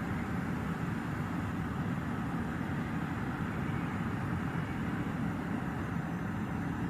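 Steady low mechanical rumble that holds level without rising or falling, the kind of continuous noise recorded as noise pollution.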